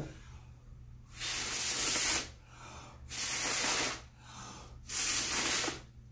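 A person blowing hard by mouth across wet pour paint on a canvas, pushing the paint outward in a Dutch pour: three long breaths of hissing air, each about a second, with short pauses between.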